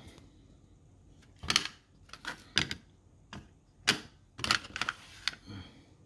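3D-printed plastic cases being picked up, set down and shuffled on a tabletop: a string of irregular light clicks and knocks.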